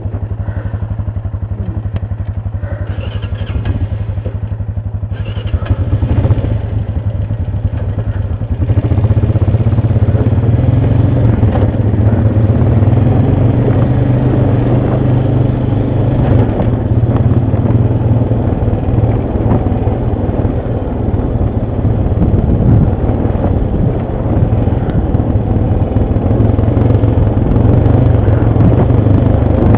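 ATV engine running at idle, then picking up about six seconds in and running louder and steadily under way from about nine seconds on, with some clatter.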